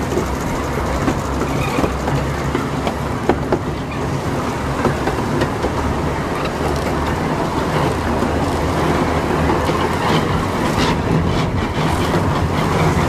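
Small ride-on railway locomotive running steadily with a low engine hum as the train rolls along the narrow track, wheels clattering with scattered clicks over the rail joints.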